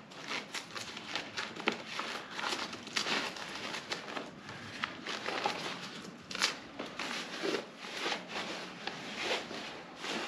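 Rustling and crinkling as a folded camping cot is unpacked by hand, its fabric and wrapping crumpling, with many small irregular clicks and crackles.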